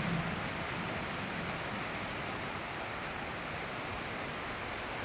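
Heavy rain pouring down in a tropical thunderstorm, a steady, even hiss.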